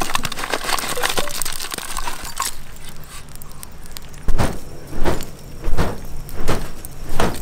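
Lumps of charcoal clattering and rattling as they are poured from a metal bowl onto hot embers in a ground pit, for about two and a half seconds. After a short lull, a series of regular soft thumps begins, about one every 0.7 seconds.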